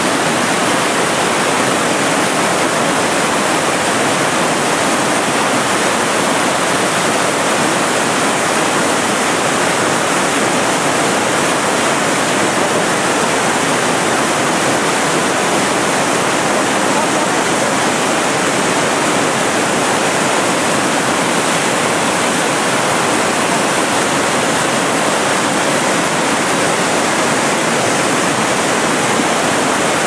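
Manavgat Waterfall: the river pouring over a wide, low rock ledge in high winter flow, a steady, loud rush of water.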